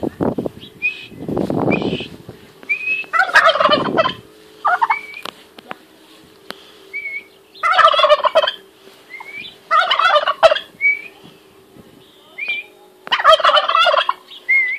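Tom turkey gobbling four times, each rattling gobble lasting just under a second, with short high rising chirps in between. A low rushing burst sounds about one and a half seconds in.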